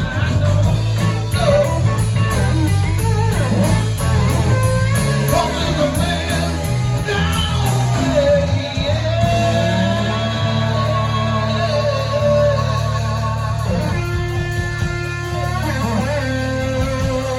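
Live blues-rock band playing, an electric guitar carrying long, bending notes over a steady bass line.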